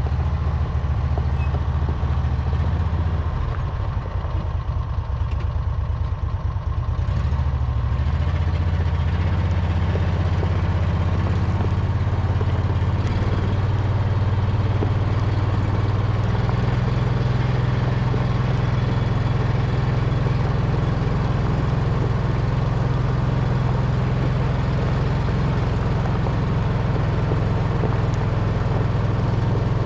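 An engine running steadily with a low hum that shifts in pitch a few times during the first half.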